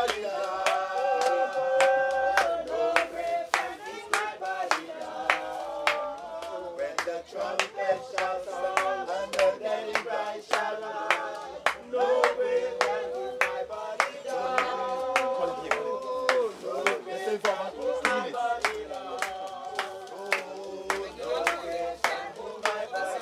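A group of people singing a hymn together, clapping along in a steady beat of about two claps a second.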